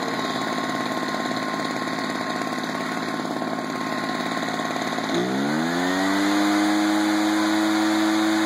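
ECHO two-stroke backpack leaf blower engine idling, then revved up about five seconds in, its pitch rising quickly and holding at high speed.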